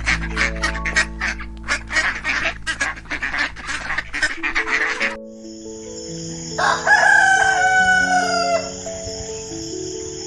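A rooster crowing once, a drawn-out call of about two seconds with a falling end, about six and a half seconds in, over background music. Before it, a rapid run of duck quacks that stops about five seconds in.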